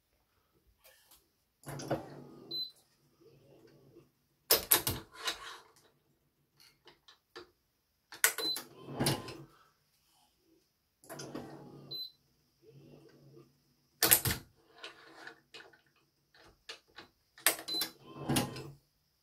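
A badminton racket being strung with BG80 string on a stringing machine: sharp clicks and snaps of the clamps and string alternate with spells of low mechanical humming from the tensioning. Each cycle brings a short high beep, and the cycle repeats about every four to five seconds.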